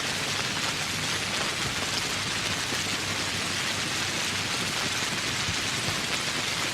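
Steady rain falling, a dense, even hiss of many drops.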